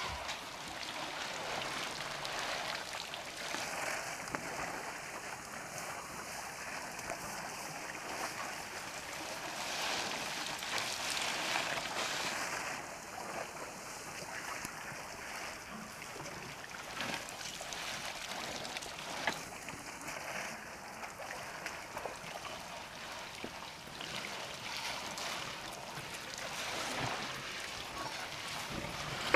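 Steady outdoor background hiss with a few faint clicks, one a little sharper in the middle.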